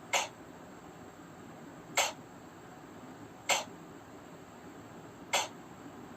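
A woman voicing the phonics sound of the letter Q, a short breathy voiceless 'k' sound, said four times about every two seconds.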